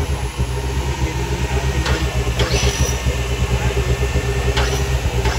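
Off-road 4x4 engine running with a steady low throb. Three sharp knocks are heard, two about two seconds in and one near the end.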